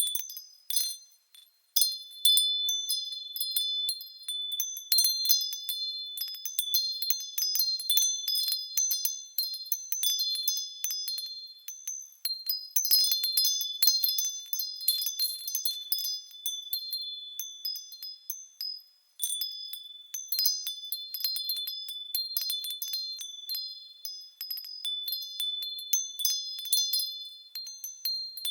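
Japanese glass or metal wind chimes (fūrin) tinkling in the breeze, rapid clusters of light strikes with high, clear ringing tones. The strikes pause briefly about a second in and again shortly before the twentieth second, then carry on.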